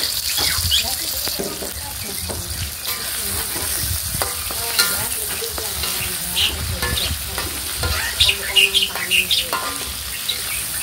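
Chopped chilies, tomatoes and shallots sizzling in oil in a wok, stirred with a metal spatula that scrapes and clinks against the pan, with a run of sharper scrapes near the end.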